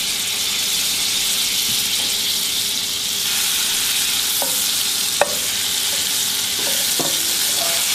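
Butter melting and sizzling in a stainless steel skillet while a slotted wooden spoon stirs it, with a few light taps of the spoon against the pan. The steady sizzle grows a little brighter about three seconds in.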